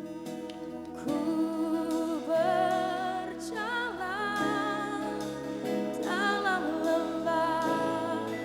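Live worship band music in a slow, tender style: sustained keyboard-like chords, joined about a second in by singing with held, wavering notes.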